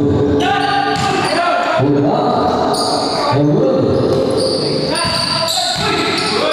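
Background music with long held notes moving through a melody, with a basketball bouncing on the court underneath.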